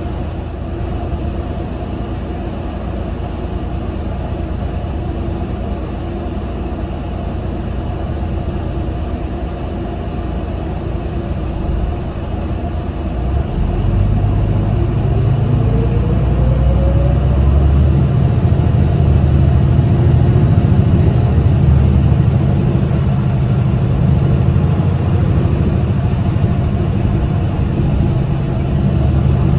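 Mitsubishi Fuso Aero Star city bus's diesel engine heard from inside the cabin, running steadily, then about halfway through growing louder and deeper as the bus accelerates, with a short rising whine.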